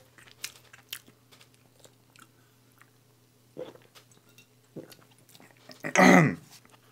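Close-up mouth sounds of a person chewing pizza, soft wet clicks. After that come a couple of gulps while drinking from a soda can, and a short loud vocal sound about six seconds in, after the drink.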